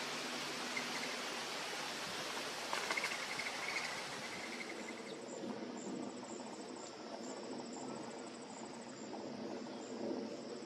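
A steady, broad hiss fills the first half and then cuts off suddenly. After that, crickets trill high and steady, with a pulse about twice a second.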